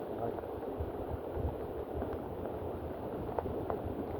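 Wind buffeting the microphone with uneven low rumbling over a steady hiss, and a few faint ticks.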